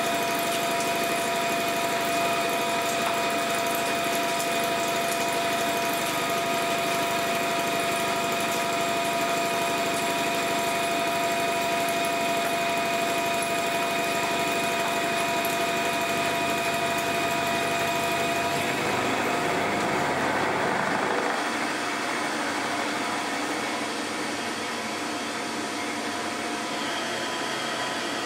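Converted Abene VHF-3 milling machine face-milling a metal block with a round-insert carbide face mill at 720 rpm, 2.5 mm deep: a steady cutting sound with several high ringing tones. About two-thirds of the way through, the tones give way to a rougher, noisier sound that drops a little in level.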